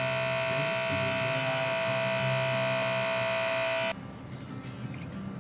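Capsule espresso machine's pump buzzing loudly and steadily while coffee pours into the cup, cutting off suddenly about four seconds in as the brew ends.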